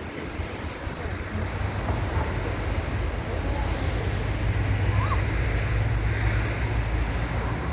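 Sea surf washing onto the shore, with wind buffeting the microphone in a low rumble that grows stronger a couple of seconds in.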